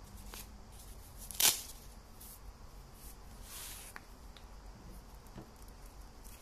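Handling of a nylon baton pouch as it is opened and the foam-gripped telescopic baton is drawn out: soft fabric rustling, one short loud rip about a second and a half in, and a brief scraping rustle a little after three and a half seconds.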